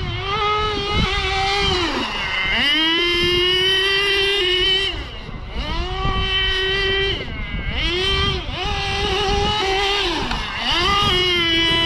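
Kyosho Inferno GT2's nitro glow engine running at high revs, dropping off and climbing back up about four times as the throttle is let off and opened again.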